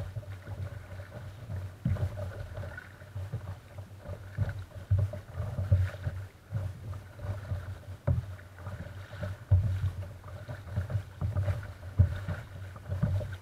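Water lapping and slapping against a plastic kayak's hull as it is paddled, picked up by a camera mounted on the bow deck as a low rumble with frequent irregular knocks and thumps.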